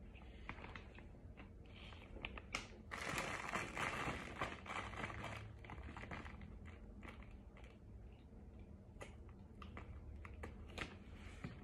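A chunk of cornstarch being bitten and crunched close to the microphone. It is loudest in a dense stretch of crunching about three seconds in, then goes on as scattered softer crackling chews.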